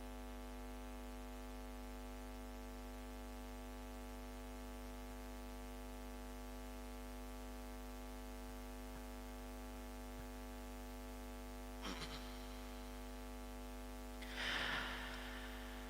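Steady electrical mains hum from the sound system, with a brief soft rush of noise near the end.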